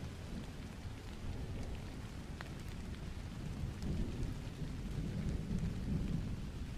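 Steady rain falling, with a low rumble of thunder that swells about four to six seconds in.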